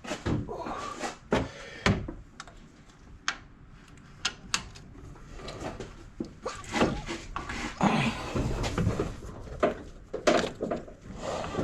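Scattered sharp metallic clicks and knocks of a power steering pump and its bolts being handled and fitted loosely onto a mounting bracket by hand.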